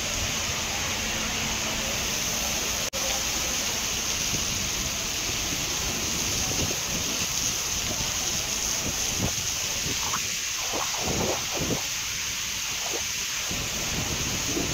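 Heavy rain pouring down, a dense steady hiss with wind on the microphone. It breaks off for an instant about three seconds in, and in the second half uneven lower rushes come and go.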